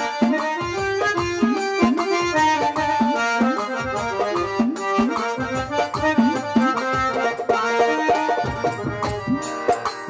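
Instrumental interlude of baul folk music. A keyboard plays a reed-toned, harmonium-like melody over a dholak barrel drum, whose bass strokes repeatedly bend in pitch.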